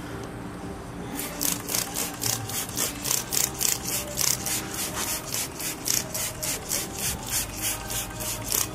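A hand trigger spray bottle squirting wheel cleaner onto a car wheel and tyre: quick, even pumps of spray hiss, about three a second, starting about a second in.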